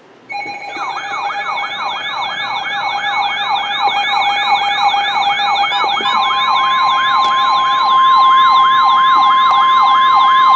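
Several electronic sirens yelping together, about three rapid rising-and-falling sweeps a second over steady tones, joined about six seconds in by the steady 1050 Hz NOAA Weather Radio alert tone that comes before a warning message.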